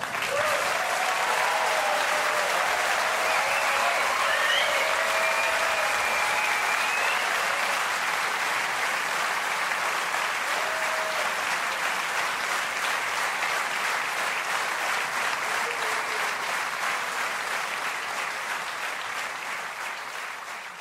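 Theatre audience applauding steadily at the close of a show, slowly fading toward the end.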